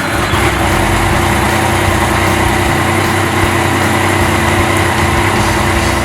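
Yamaha MT-09's inline-three engine running steadily.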